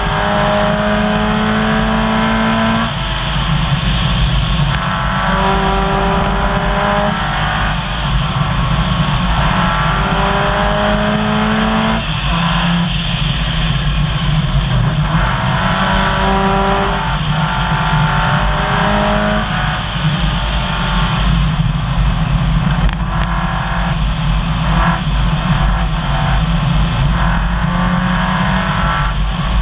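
Subaru rally car's flat-four engine heard from inside the cabin at full stage pace, climbing in pitch for two or three seconds at a time and dropping at each shift or lift, over a constant rumble of tyres on gravel.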